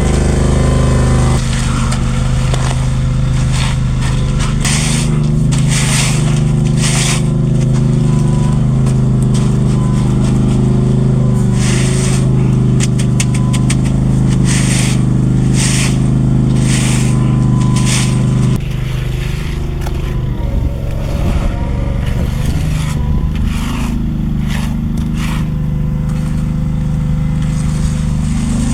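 A heavy engine running steadily, settling to a lower, quieter running about 18 seconds in, with repeated short scrapes over it.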